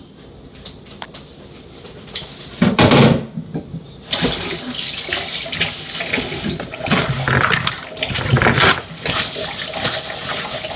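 Kitchen tap turned on about four seconds in and running steadily into the sink, with scattered knocks and clatter; a short loud knock comes just before the water starts.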